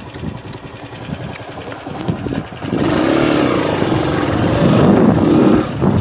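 Small motorcycle engine running as the bike is ridden, getting clearly louder about three seconds in.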